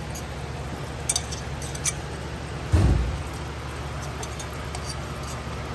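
Parts washer pump running with a steady low hum while a metal oil separator canister is handled in the washer tub, giving a few light metal clinks and one dull thump about three seconds in.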